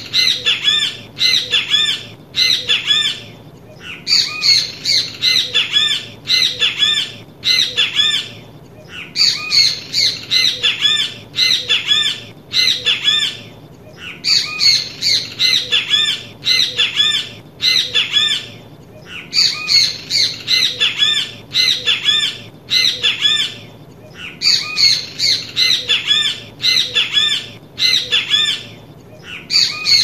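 Great kiskadee (bem-te-vi, Pitangus sulphuratus) calling loudly, in bouts of four or five quick calls that repeat about every five seconds, over a steady low background hiss.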